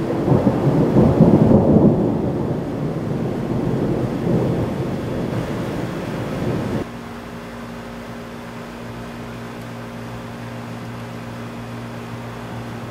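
Thunder from a close lightning strike rumbling low, loudest about a second or two in and slowly dying away, until a sudden cut about seven seconds in. After the cut, a quieter steady low mechanical hum with a fixed tone.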